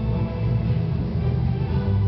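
Music with sustained notes over a heavy low end.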